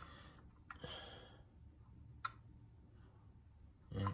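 A few light clicks and knocks of small metal alcohol stoves being handled and set down side by side, with a louder knock near the end.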